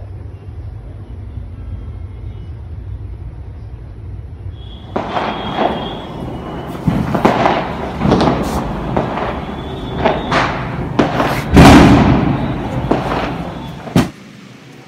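A steady low rumble, then firecrackers going off in an irregular string of bangs and crackles from about five seconds in, the loudest about twelve seconds in, ending with one last sharp crack.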